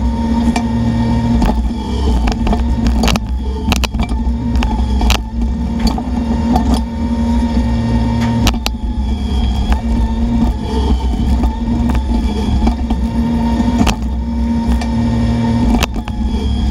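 Bobcat E10 mini excavator's diesel engine running while the machine works, its hum rising and falling every few seconds as the hydraulics take load, with scattered sharp knocks and clanks throughout.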